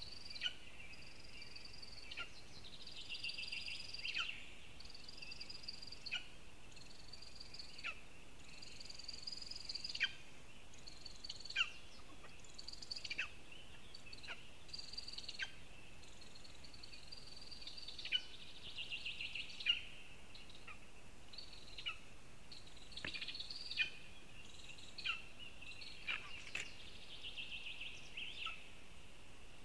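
Wild birds singing: repeated high, thin phrases, with sharp downward-sweeping notes every second or two and some brief trills, over a faint steady background hiss.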